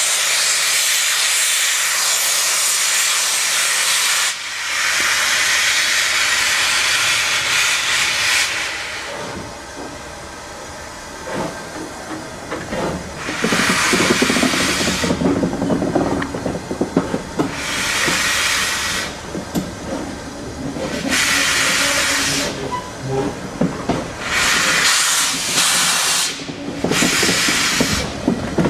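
Steam locomotive at the head of the train, heard from a carriage window, working on a curve with its cylinder drain cocks open: loud steam hissing for the first several seconds, then the rumble and knocking of the train on the rails broken by repeated bursts of hiss.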